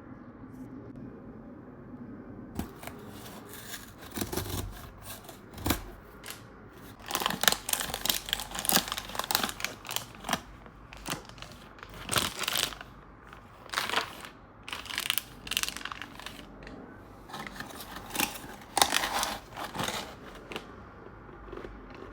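Packaging being torn open and crinkled by hand, in irregular quick rustling bursts that start about three seconds in and stop shortly before the end.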